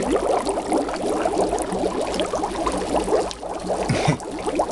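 Dry ice bubbling in a sink full of water: a dense, steady bubbling as the carbon dioxide gas it gives off breaks through the water, easing briefly a little after three seconds in.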